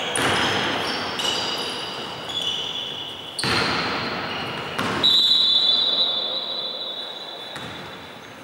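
Basketball game noise in an echoing gym: sneakers squeaking and a ball bouncing on the wooden court. A loud knock comes about five seconds in, followed by a high tone that fades away over a few seconds.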